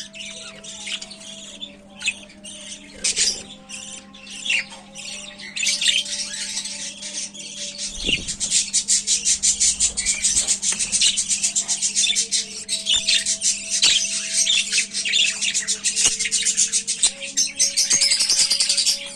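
Bird chicks squawking and chirping in rapid, dense calls, sparse at first and becoming a near-continuous chatter about a third of the way in, over a steady low hum.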